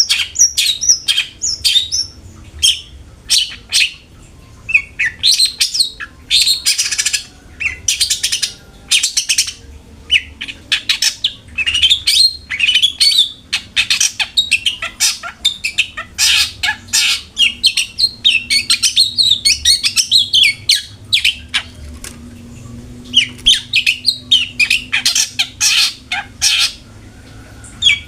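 Long-tailed shrike (cendet) singing a fast run of sharp, chattering notes in bursts, with a few short pauses between phrases.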